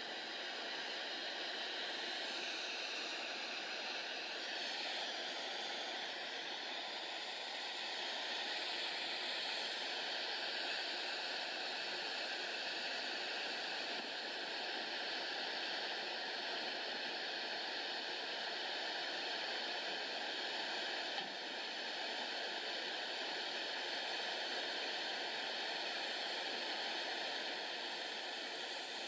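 Flash-flood water rushing through a narrow rock canyon, a steady dense rushing noise with no break.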